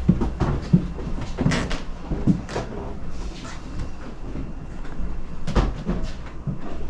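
Scattered knocks and bumps over a steady low hum. Several sharp knocks come in the first second or so, a few more over the next two seconds, and another about five and a half seconds in.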